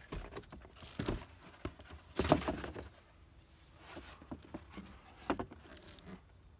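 A cardboard box being handled and turned over on a wooden table: rustling and scraping with a few knocks, the loudest scrape about two seconds in and another about five seconds in.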